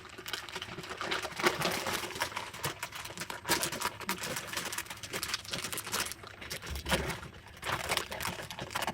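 Popcorn snack bag crinkling and rustling in irregular bursts as it is handled and pieces are pulled out.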